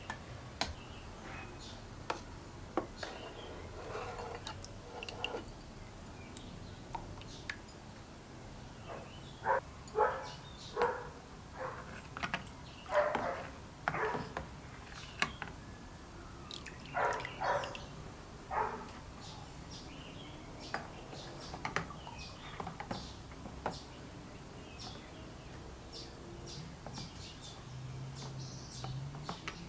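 Workbench handling sounds from work on a small solenoid pump: scattered sharp clicks and short scraping or rubbing strokes, busiest and loudest in the middle.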